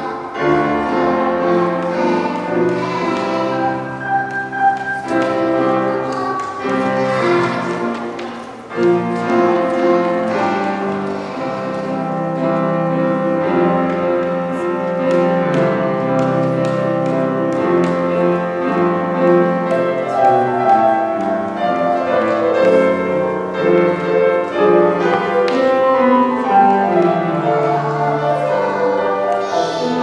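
Children's choir singing a Korean song, with instrumental accompaniment.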